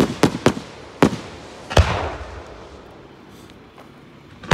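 Aerial fireworks bursting: a quick run of sharp bangs in the first two seconds, the loudest and deepest near two seconds in, each with an echoing tail. The sound then dies away before another bang near the end.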